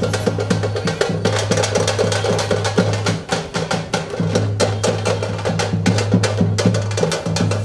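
A group of hand-held frame drums beaten with sticks, playing a fast, driving rhythm of sharp strikes, over a steady low drone that breaks off briefly about three seconds in.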